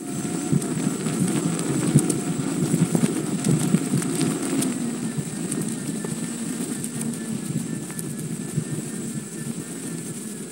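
Gotway MSuper X electric unicycle riding over rough trail: a thin, slightly wavering motor whine over a steady rumble of wind and trail noise on the microphone.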